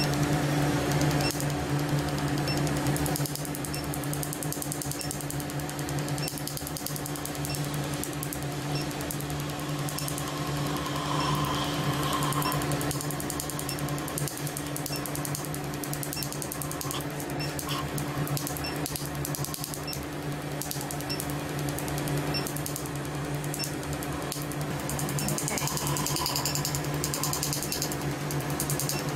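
Tattoo-removal laser firing a rapid run of sharp snaps as its pulses hit the skin, over a steady hum.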